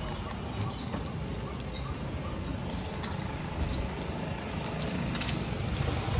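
Outdoor background: a steady low rumble with short, high chirps of small birds and a few light clicks and rustles in dry leaf litter.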